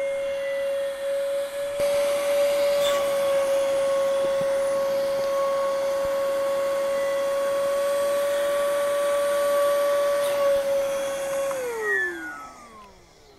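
Electric air pump on its deflate setting, drawing air out of an inflatable boat with a steady whine. Near the end it is switched off and its pitch falls away as the motor spins down.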